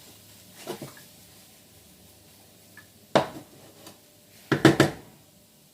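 A cooking utensil knocking against a pan while stirring food: a faint knock, a sharp knock about three seconds in, then a quick cluster of clatters near the end.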